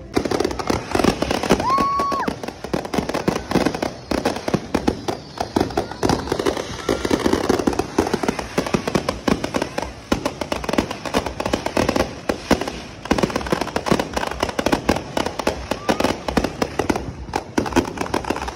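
Fireworks display: a continuous barrage of rapid crackling bangs and pops from aerial fireworks.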